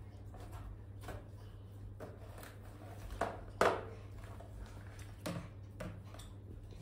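Scattered light knocks and scuffs, the loudest pair a little over three seconds in and another about five seconds in, over a steady low hum.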